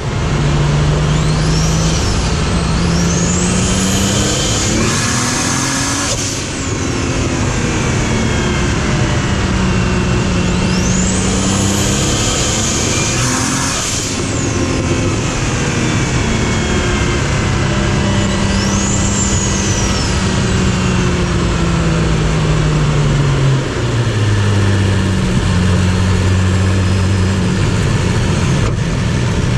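A car engine running under way at a fairly steady note that steps up and down a few times and drops lower at about 24 s. Faint high whistles rise and fall over it.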